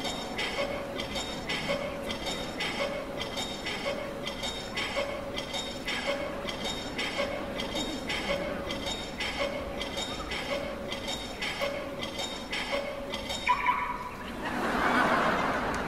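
Steady metallic clinking ticks, about two a second, with a low tone under every other tick, like a clock's tick-tock. Near the end the ticking stops, a short high tone sounds, and a brief rushing burst follows.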